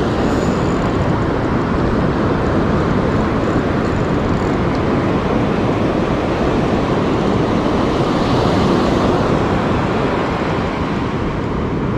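Steady wind noise on the microphone from a strong onshore beach wind, with surf breaking along the shore.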